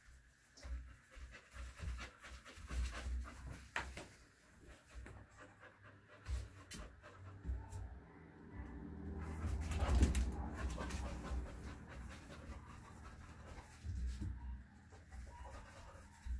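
Large dog panting, with scattered short clicks and knocks.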